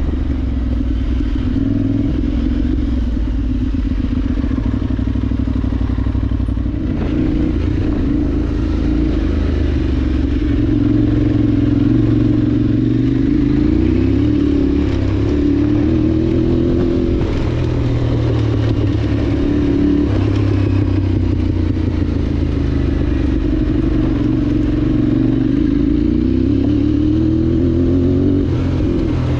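Parallel-twin adventure motorcycle engine running under way off-road, its pitch rising and falling over several seconds as the throttle is opened and closed.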